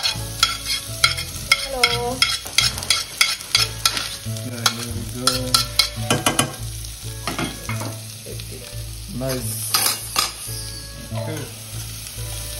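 Diced onions frying and sizzling in a stainless steel pot on an electric hob. Sharp clicks run throughout as a knife scrapes the onions off a plate into the pot, and later as a spoon stirs them.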